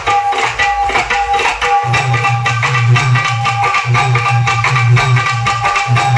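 Loud DJ music from a street sound system's stacked speaker cabinets, with a heavy pulsing bass line that comes in about two seconds in.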